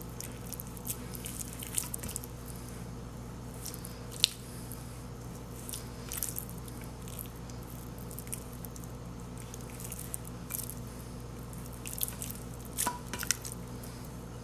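Wet squishing and small sticky clicks of marinated raw chicken pieces being handled and pushed onto a wooden skewer, with a sharper click about four seconds in. A steady low hum runs underneath.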